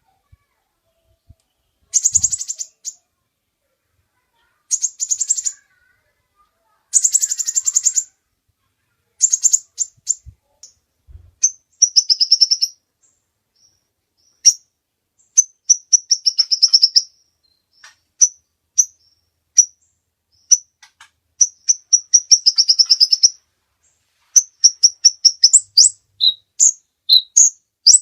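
A kolibri ninja sunbird singing. It gives short bursts of very rapid, high-pitched trilling, each under a second long. From about ten seconds in, these give way to runs of quick, sharp chirps that crowd together into fast strings of notes.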